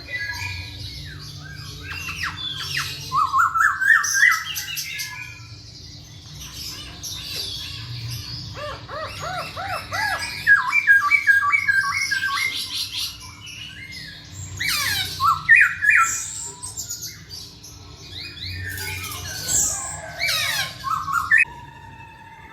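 Masked laughingthrush (poksay Hongkong) singing in vigorous bursts: harsh squawky notes, runs of quick repeated chirps and rising whistled phrases, with short pauses between them. A faint steady hum lies underneath.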